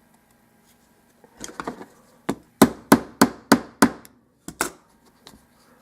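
Channel-lock pliers used as a hammer, striking a euro cylinder lock to drive out its roll pin: a few light taps, then a quick run of sharp metal knocks, about three a second, and two more after a short pause. The pin does not come out.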